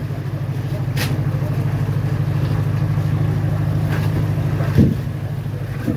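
A boat's engine running steadily with a fast, even low throb, with a sharp click about a second in and a dull thump near the end.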